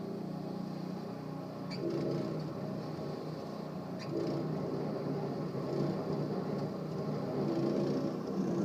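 Snowblower engine running steadily, with two short clicks about two and four seconds in.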